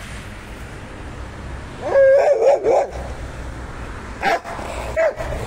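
Rottweiler whining and yipping at a cat it cannot reach: a quick run of high, wavering cries about two seconds in, then two short yips near the end.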